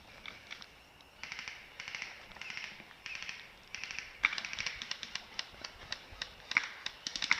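Footsteps crunching and rustling through dry leaves and brush, with sharp irregular clicks that grow more frequent about four seconds in.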